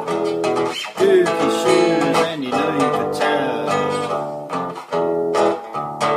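Music: a strummed acoustic guitar playing an instrumental passage of a song, with a gliding melody line over it about a second in.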